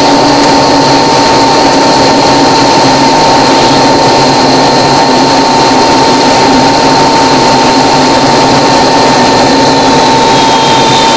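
Small aircraft's engine running loudly and steadily at a constant pitch, heard from the cockpit as the plane rolls along the runway.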